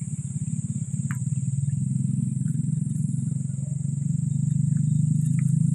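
An engine running steadily with a fast, even pulse, growing a little louder about four seconds in, over a constant high-pitched buzz.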